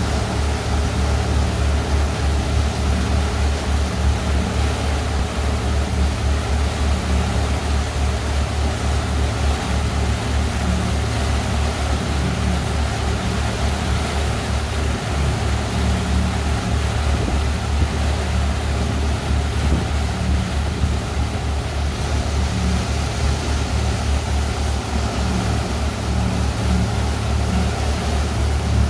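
Tour boat's engine running steadily with a deep, throbbing drone, over the constant rush of water churned up in its wake.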